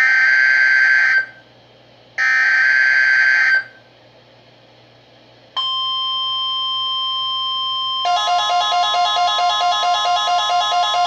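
Two short, buzzy Emergency Alert System SAME header data bursts, then the steady NOAA Weather Radio 1050 Hz warning alarm tone starting about five and a half seconds in. From about eight seconds a second, lower alarm tone joins it, pulsing about four times a second.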